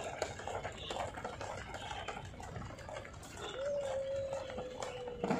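Small plastic wheels of a child's kick scooter rattling over the joints of paving stones, a run of light irregular clicks. About three and a half seconds in, a single held tone sounds for under two seconds, dropping slightly in pitch.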